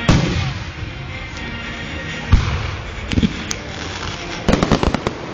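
Fireworks going off over background music: a loud bang right at the start, single bangs about two and three seconds in, then a quick string of crackling reports near the end.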